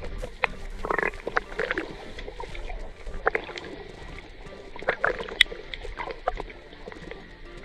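Water sloshing and splashing in irregular bursts, with many short clicks.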